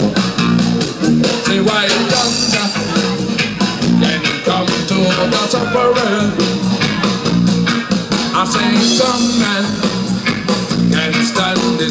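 Live reggae band music played loud over a festival PA, with a steady bass line, a chopped rhythm guitar on a regular beat and a sung vocal line.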